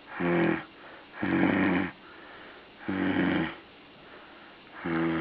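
A dog snoring, four snores about one to one and a half seconds apart, each a short low rasping breath with a pitched buzz to it.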